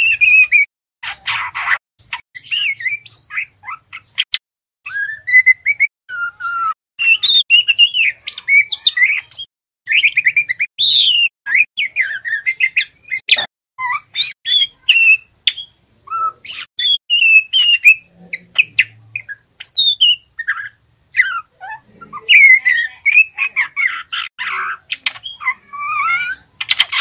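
Juvenile male white-rumped shama twittering in short, rapid, broken phrases of chirps and warbled notes: the rambling subsong (ngeriwik) of a young bird learning to sing.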